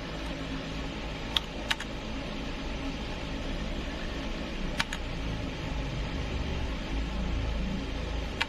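A steady low hum and hiss, broken by a few sharp clicks that come in pairs: once about a second and a half in, again near the middle, and once at the end. The clicks are single keys pressed on a mechanical keyboard.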